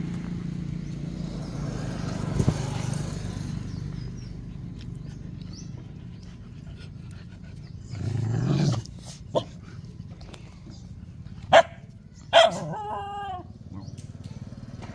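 A dog barks twice, sharply, a little under a second apart; the second bark trails off into a short wavering whine.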